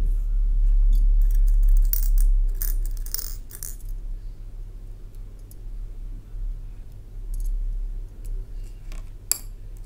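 Small beads clinking against a glass bowl as fingers pick through them: a cluster of light clicks about two to four seconds in and one sharp click near the end, over a low rumble.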